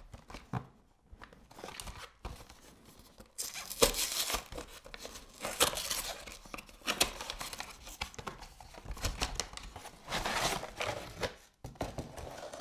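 A cardboard frozen-cake box being torn open by hand: irregular bursts of cardboard tearing and packaging rustling, strongest through the middle of the stretch.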